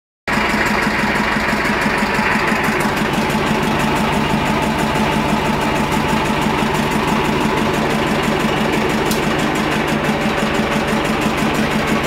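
Listeroid slow-speed single-cylinder diesel engine driving a generator, running steadily with an even, regular beat.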